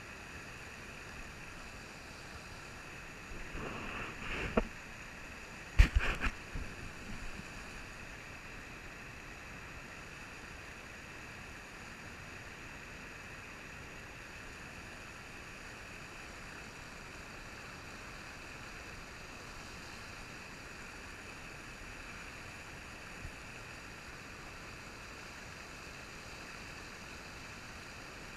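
Steady rush of shallow river water running over riffles and rapids. A cluster of sharp knocks and clatters breaks in about four and six seconds in, the loudest near six seconds.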